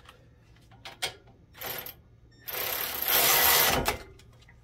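Cordless electric ratchet driving a brake caliper bolt in: a short spin about a second and a half in, then a longer run of about a second and a half that is the loudest sound, stopping near the end. A light click comes about a second in.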